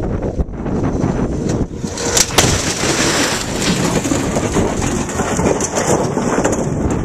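Crash-test impact on a steel cable barrier: two sharp crashes close together about two seconds in, then the rattle of torn cables and scattering gravel and debris. Heavy wind noise on the microphone runs underneath.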